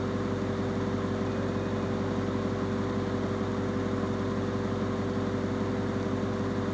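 A steady, unchanging mechanical hum with a few held tones in it.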